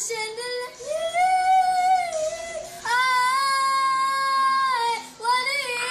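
A young girl singing in a high voice, holding two long notes, the second higher than the first.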